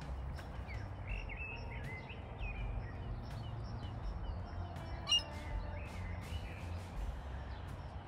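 Wild birds calling: a run of short chirps and sliding calls, with one louder, sharp call about five seconds in, over a steady low rumble.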